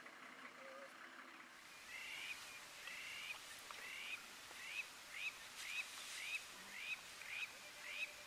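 A bird calling a regular series of short notes, starting about two seconds in and repeating about one and a half times a second, the later notes each sweeping upward.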